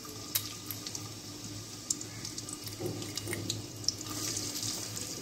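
Sliced onions sizzling in hot oil in a karahi as they start frying for beresta, a steady hiss with a few sharp crackles and pops.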